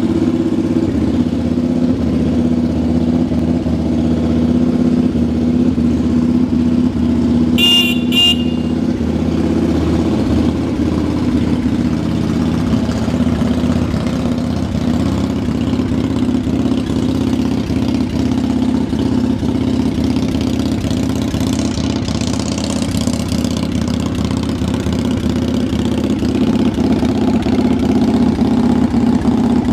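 Air-cooled 1100 cc V-twin of a 2003 Yamaha V-Star 1100 idling steadily. Two short high beeps sound about eight seconds in.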